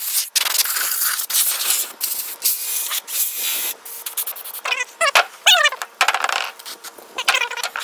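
Steady spray hiss for about the first four seconds, broken by a few sharp clicks, then several short chirps that fall in pitch.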